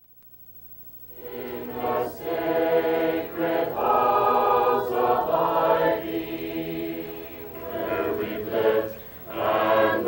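Choir singing slow, sustained notes, starting about a second in after a moment of silence.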